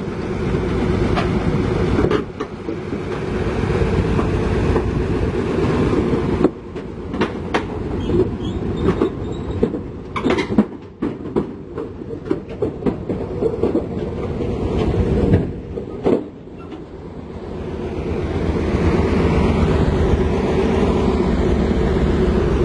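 Diesel engine of a tracked heavy machine running under load while its steel crawler tracks clank and squeal. A run of sharp clanks and knocks comes through the middle, then the engine drone builds again near the end.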